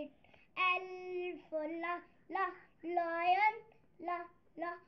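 A young boy singing a phonics alphabet song: a string of short sung syllables with brief gaps, and one longer held note near the start.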